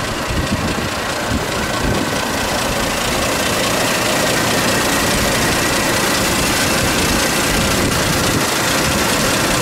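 A 1923 Rolls-Royce Silver Ghost's side-valve inline-six engine idling steadily, growing slightly louder a few seconds in.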